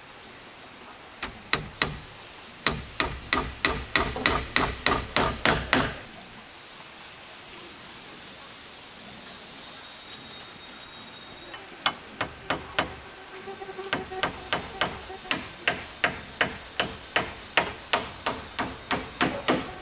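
Hammer driving nails into wooden boards: a run of quick, even blows, a pause of several seconds, then a second, slightly slower run.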